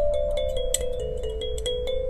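Background music: a quick melody of struck, bell-like notes over held tones.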